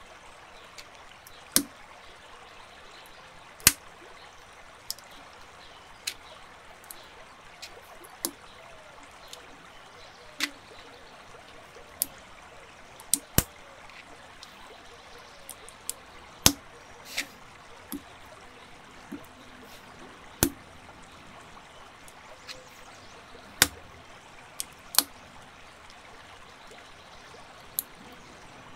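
Plastic building bricks clicking sharply as pieces are handled and pressed together, irregular, about one click every second or two, over a steady background hiss.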